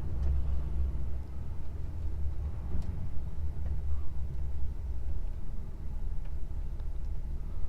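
Steady low engine and road rumble inside a DAF XF truck cab while driving.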